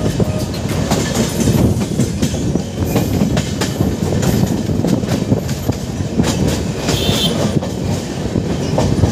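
Indian Railways passenger coach running along the track, heard from the coach's side: a steady, loud rumble of wheels on rail with frequent irregular clicks.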